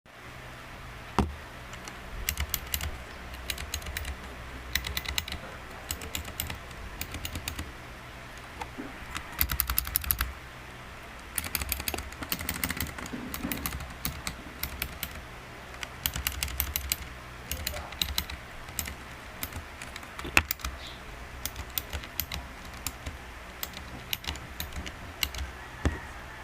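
Typing on a cheap stock mechanical keyboard: runs of rapid key clicks in bursts with short pauses, a few single louder key strikes between them, over a steady low hum.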